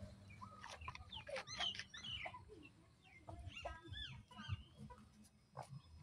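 Farmyard chickens clucking, a scatter of short, fairly faint calls, some of them sliding up or down in pitch.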